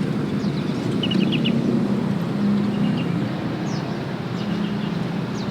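Small birds chirping in short groups of quick high notes over a steady low hum of passing traffic.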